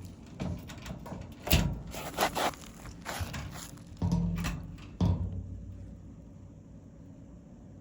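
Clunks, knocks and scraping from a dryer's front panel being lifted and set onto its mounting lip, with several thuds in the first five seconds before it goes quieter.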